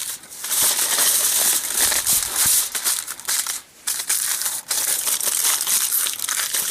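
Sheet of tin foil crinkling and crackling as hands fold and squeeze it tightly around a pistol, with a brief pause a little past halfway.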